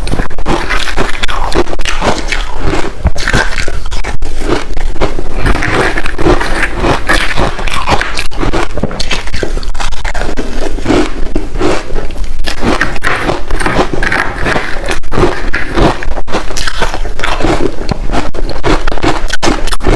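Close-miked biting and chewing of large chunks of reshaped ice: a continuous run of loud, sharp crunches and scraping crackles.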